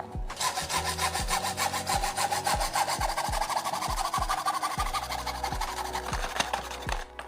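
Steady rasping scrape of a tool sawing or filing, over background music with a regular kick-drum beat and bass. The rasping cuts off near the end.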